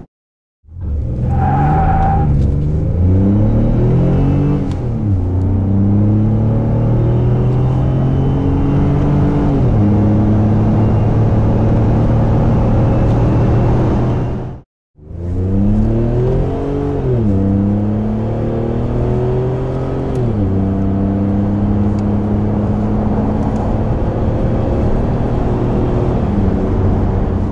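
Ford F-150 pickup accelerating, heard from inside the cab, through two back-to-back clips of Borla cat-back exhausts, first the Touring and then the S-Type. In each clip the engine note climbs in pitch and drops back at each upshift. A short beep sounds near the start, and a brief cut to silence falls about halfway through.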